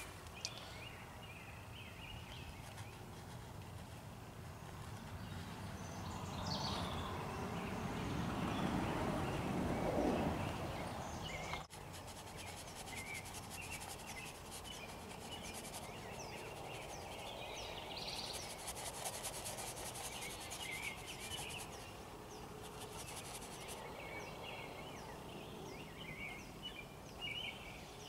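Outdoor ambience of birds chirping and insects buzzing. A louder rushing noise swells up, peaks about ten seconds in and cuts off abruptly shortly after.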